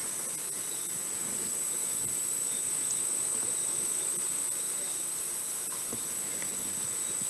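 Steady background hiss with a thin, unchanging high-pitched tone underneath, with no other sound standing out.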